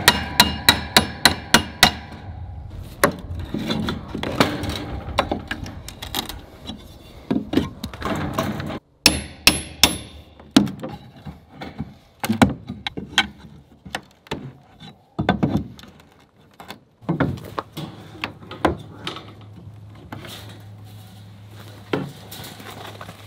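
Hammer striking a steel pry bar wedged between a wooden trim board and the siding, a quick run of sharp metallic knocks about four a second, working welded-wire fencing loose. After that come scattered knocks and the scrape and rattle of the wire against the wood, with a few softer knocks near the end.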